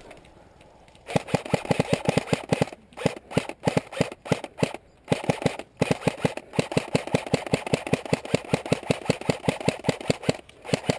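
Airsoft gun firing close by: rapid, evenly spaced sharp shots, about eight a second, in several long bursts with short breaks, starting about a second in.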